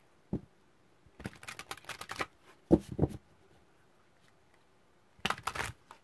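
A deck of oracle cards being hand-shuffled: a flurry of rapid card flicks a second or so in and again near the end, with a few single knocks in between.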